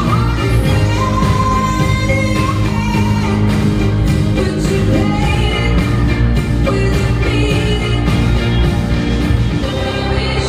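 A pop song playing, with a sung vocal line over a steady beat and bass.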